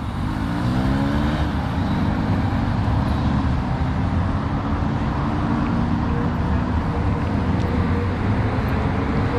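A motor vehicle's engine running, rising in pitch over the first second or so and then holding steady, over a continuous rushing noise.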